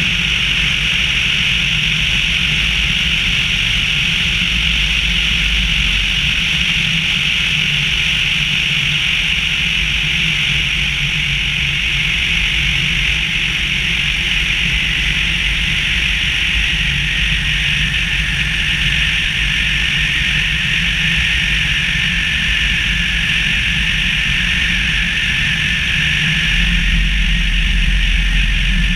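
Tecnam P92 light aircraft in flight: its engine and propeller running steadily under a strong rush of wind over the wing-mounted camera. A faint steady whine joins about halfway through, and the low rumble grows slightly near the end.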